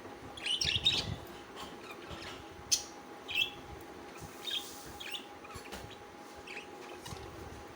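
Budgerigars chirping in short, scattered calls, a cluster about half a second in and then single chirps every second or so.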